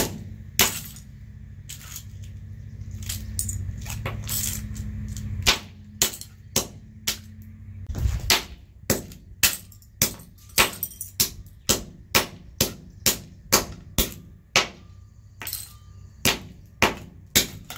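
Westclox alarm clock being smashed: repeated hard blows against the clock, sparse at first, then about two a second from around eight seconds in. A low steady hum sits under the first five seconds or so.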